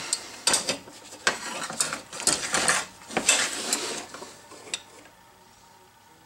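Metal marking-out tools, a steel rule with a square head and a scriber, clinking and scraping as they are handled against an aluminium plate on a wooden bench. The sharp clicks and scrapes come close together for about the first four and a half seconds, then die away.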